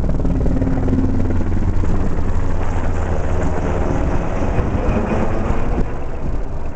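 Helicopter flying low overhead, its four-bladed main rotor beating rapidly and steadily along with the engine noise.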